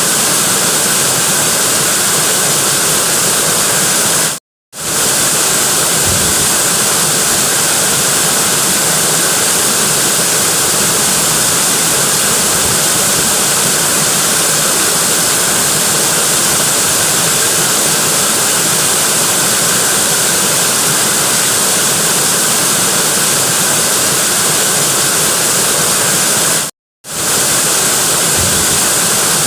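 Waterfall rushing in a steady, loud roar of falling water. It cuts out suddenly to silence for about half a second twice, a few seconds in and near the end.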